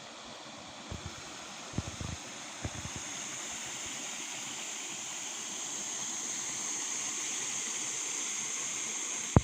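Steady rushing noise of running water, growing slowly louder, with a few soft low thumps in the first three seconds.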